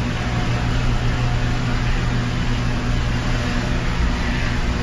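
Steady machinery noise inside an overhead charging crane's cab: an even roar with a constant low electrical hum as the crane moves a scrap basket.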